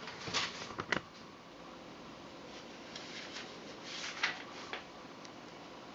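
Light, irregular scratching and tapping of hand work on small cuckoo clock parts while dirt is cleaned out. The sounds come in two short clusters, about half a second in and again around three to four and a half seconds in.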